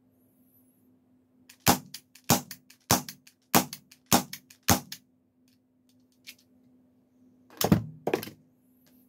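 ASG Dan Wesson 715 CO2 airsoft revolver with a suppressor firing six shots in a steady run, about one every 0.6 seconds. Near the end come two louder clattering knocks.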